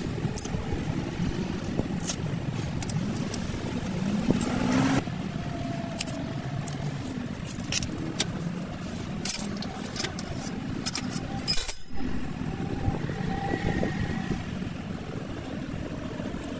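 Car running with a steady low hum, scattered sharp clicks and knocks over it, and a brief rise in pitch about four seconds in.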